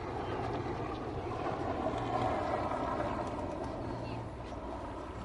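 A road vehicle passing, its noise swelling to a peak about halfway through and then fading, over a steady low hum of traffic.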